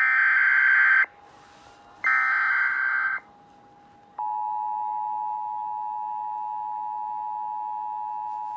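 NOAA Weather Radio alert signal: two short bursts of screechy digital SAME header data, then from about four seconds in a long, steady warning alarm tone that announces a warning broadcast.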